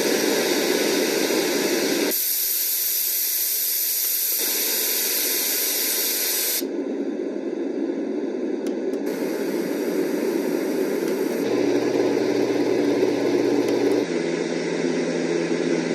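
Easysleep sound machine playing its nature sounds one after another. Each is a steady rushing hiss, and the sound cuts abruptly to a different one every two to three seconds as the sound button is pressed.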